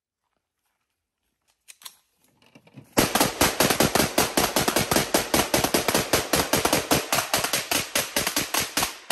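A handgun and an AR pistol fired together in a mag dump: a continuous string of rapid semi-automatic shots, about seven or eight a second, starting about three seconds in and stopping just before the end. A couple of faint clicks come shortly before the shooting starts.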